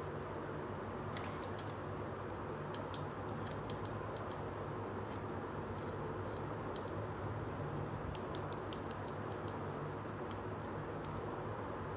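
Scattered sharp little clicks and taps of hard plastic being handled, a small toy washing machine turned over in the hands, over a steady low hum and hiss.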